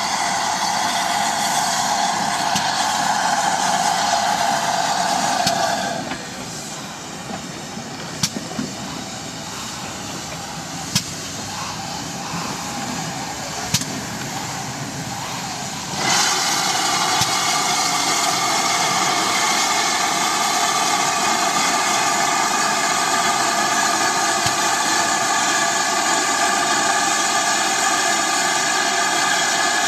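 GWR 4300 Mogul steam locomotive on the move with a loud, steady hiss of steam. The hiss cuts off suddenly about six seconds in, leaving a quieter stretch with a few sharp clanks, then comes back just as suddenly about ten seconds later and carries on.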